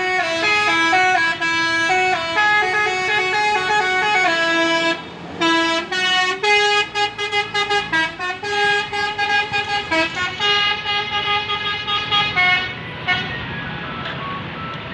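Telolet bus horn playing a multi-note tune. About five seconds in there is a short break, then a run of quick short toots. Longer held tones follow, and it grows quieter near the end.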